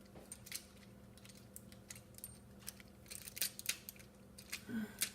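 Light scattered clicks and taps of plastic toy figures being handled and moved, over a faint steady hum.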